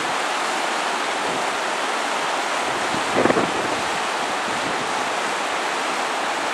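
Steady rushing of river rapids, with hot-spring runoff cascading down the bank into the river, under some wind on the microphone. Briefly louder about three seconds in.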